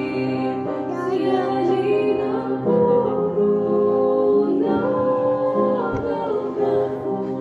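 A Christian devotional song: a high voice singing sustained notes over instrumental accompaniment.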